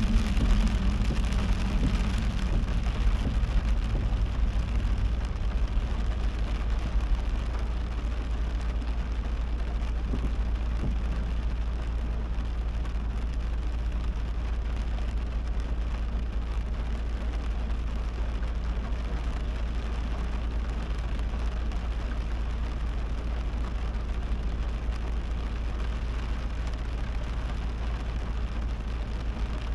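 Heavy rain falling on a moving car, over a steady low rumble from the car driving. It is a little louder for the first several seconds, then settles to an even level.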